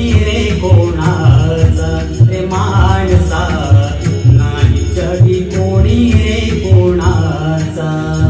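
A man singing a Marathi social-message song (samaj prabodhan geet) in long, drawn-out phrases over a backing track with a steady drum beat.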